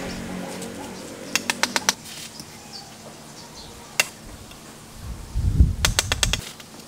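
Steel bricklayer's trowel tapping clay bricks to bed them into mortar: a quick run of sharp clicks, a single tap about four seconds in, then another run of taps with dull thumps near the end.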